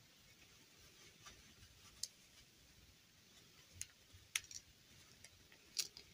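Near silence broken by a handful of faint, short clicks spaced a second or more apart: hands handling a plastic fashion doll and adjusting its dress.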